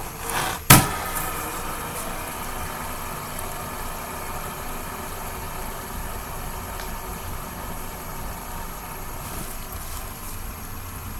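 A sharp click, then a fidget spinner's ball bearing whirring in a steady hum as it keeps spinning.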